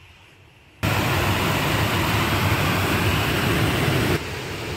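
A loud, steady rushing noise, even and without any pitch, that cuts in abruptly about a second in and steps down to a quieter level near the end.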